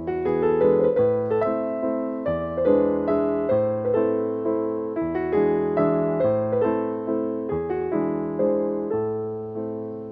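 Background piano music: notes struck at a steady, unhurried pace over held bass notes.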